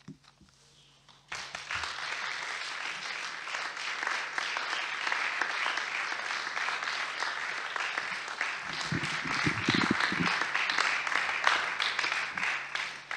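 Audience applauding, starting about a second in after a brief pause and running on steadily to the end, with a voice heard briefly under the clapping in the middle.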